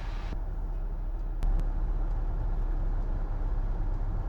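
Steady low drone of a Cessna 172H's six-cylinder Continental O-300 engine at reduced power near idle on short final, heard inside the cockpit. Two sharp clicks come about a second and a half in.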